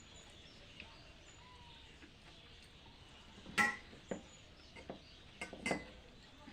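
Eating noises at a meal of watered rice and fried sides: a handful of sharp clicks and knocks from hands and plates, the loudest about three and a half seconds in, the others coming over the next two seconds.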